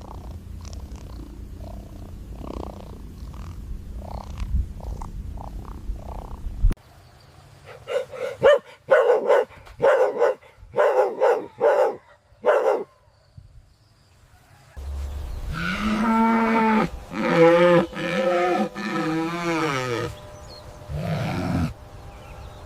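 Farm animal calls over a low background rumble: a run of about a dozen short calls, then one long call with a wavering pitch about fifteen seconds in.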